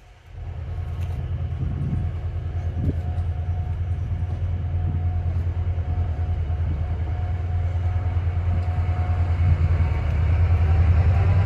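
Train running with a low, steady rumble that starts suddenly and slowly grows louder toward the end.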